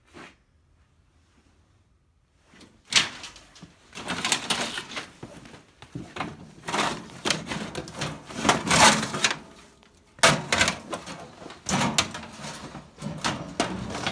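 Objects being shifted about by hand: irregular clattering, knocks and scrapes, starting about three seconds in and pausing briefly later before going on.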